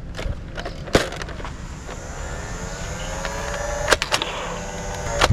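Toy gun: a few sharp clicks or shots, about a second in, twice near four seconds and again at the end, over a steady low hum and a rising whirring whine.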